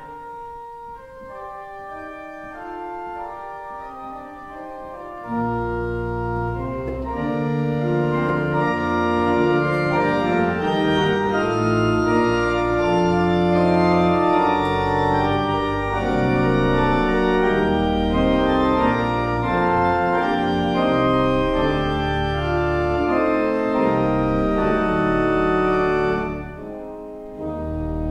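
Church organ playing a voluntary: soft chords without bass at first, then the pedal bass enters about five seconds in and the sound grows fuller and louder. It breaks off briefly near the end and starts again.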